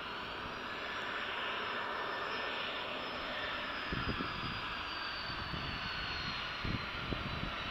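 Twin Pratt & Whitney PW545 turbofans of a Cessna Citation XLS business jet running at taxi power: a steady jet hiss with a thin high whine slowly falling in pitch. A few short low thuds come about four seconds in and again near the end.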